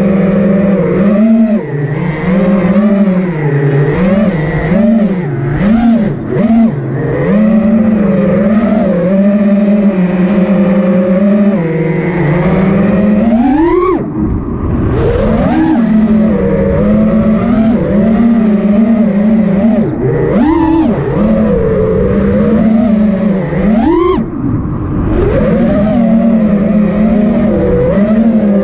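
FPV racing quadcopter (Armattan Rooster on DalProp 5046 props and a 5S battery) with its motors and propellers whining, the pitch swinging up and down constantly with throttle. Several sharp rising throttle punches come in the second half, each dropping off quickly afterwards.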